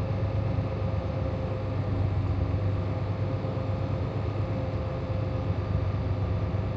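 Semi truck's diesel engine and cab noise heard from inside the Freightliner Cascadia's cab as it rolls slowly across a weigh scale: a steady low drone.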